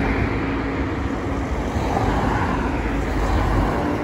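Road traffic: cars passing close by on a town road, a steady mix of engine and tyre noise with a low rumble.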